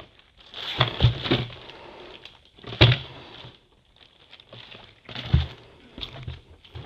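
Metal frame parts of a TravelScoot mobility scooter knocking and clunking as the steering yoke is worked into its socket on the hinged frame. There are several separate knocks, the loudest about three seconds in. The slight misalignment comes from the normal play in the hinge.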